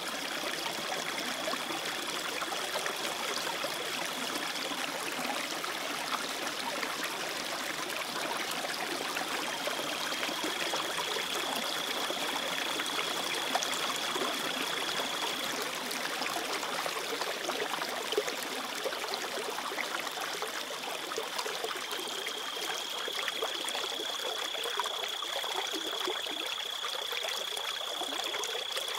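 Shallow river water running steadily, a continuous rushing and trickling. A thin, steady high tone comes and goes three times over it.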